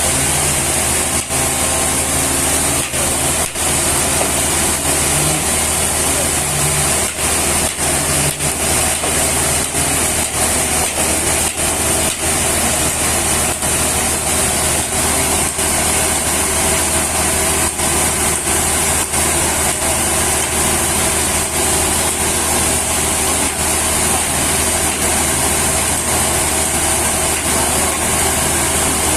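An engine running steadily, loud and even, with no change in pitch.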